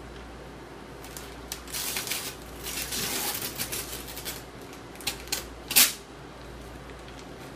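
Wrapping paper rustling and tearing as a baby pulls it off a gift box, in irregular bursts that start about a second and a half in, the loudest one near six seconds.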